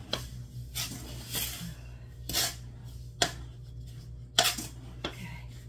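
Wooden spoon stirring dry powdered tea mix in a large aluminium stockpot: short, irregular scraping strokes against the metal pot, every half second to a second, over a low steady hum.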